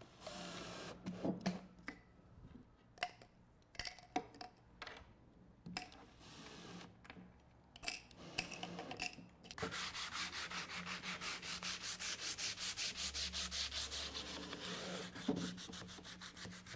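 Short whirring bursts and clicks of a cordless drill-driver driving small screws through plastic lids into wood. About ten seconds in, a steady rhythmic rubbing starts, about four strokes a second.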